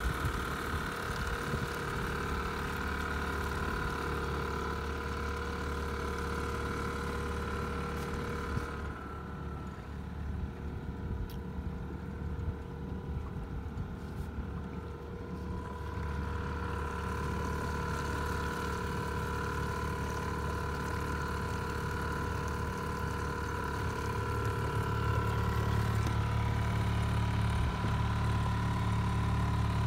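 Outboard motor of a trolling fishing boat running steadily, a constant engine hum with a thin steady whine over it. It is briefly softer in the middle and a little fuller and louder near the end.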